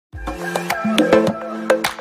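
Music with a quick rhythm of sharp percussive clicks over held low notes, opening with a deep bass hit.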